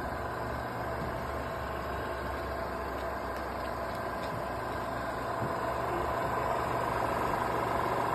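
Super Slot-Load II film projector running in regular play: a steady motor whir with a thin high tone over it, growing slightly louder about halfway through. It runs evenly, which the owner judges to be running just fine.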